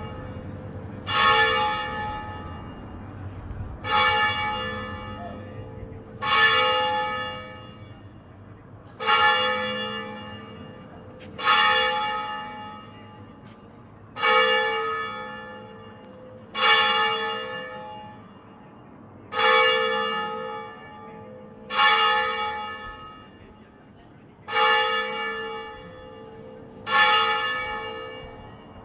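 A church bell tolling slowly: eleven single strokes, one about every two and a half seconds, each ringing on and fading before the next.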